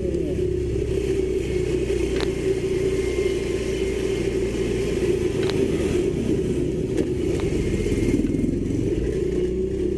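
Motorcycle engine running steadily as the bike rides along a narrow street, with a few faint ticks.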